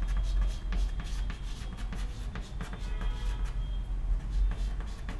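Chalk writing on a chalkboard: a run of short scratches and taps as the letters are formed. A steady low hum runs underneath.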